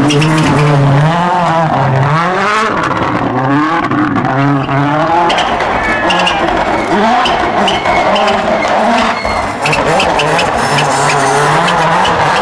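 Toyota Yaris WRC rally car's 1.6-litre turbocharged four-cylinder engine revving hard. Its pitch climbs and drops in steps as it shifts up and down through the gears, with short sharp cracks in between.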